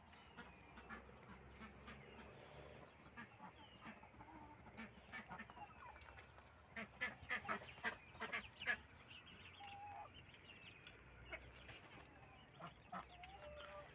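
Chickens and ducks calling faintly as they settle onto their roosts for the night: scattered short clucks and quacks, busiest in a flurry about halfway through.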